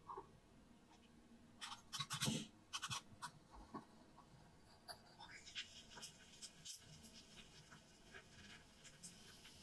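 Faint crackling and small ticks from a miniature clay donabe pot cooking rice on a tiny stove, with a cluster of louder sharp clicks about two seconds in.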